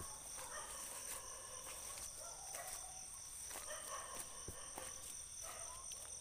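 Night insect chorus: crickets trilling steadily at two high pitches, with fainter intermittent calls underneath and a few soft clicks.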